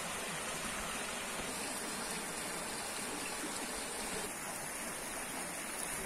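Shallow river running down an eroded earth channel: a steady, even rush of water.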